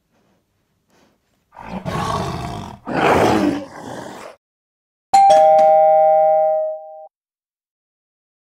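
A dog's long, drawn-out yawn in two pulls. Then a two-note chime sound effect, like a doorbell ding-dong, rings loudly for about two seconds and stops.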